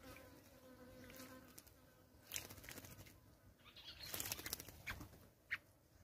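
Kurrichane thrush bathing in shallow water, splashing and fluttering its wings in short spells, densest about four seconds in, with a sharp single splash near the end. A faint low hum, like a buzzing insect, sounds in the first second or so.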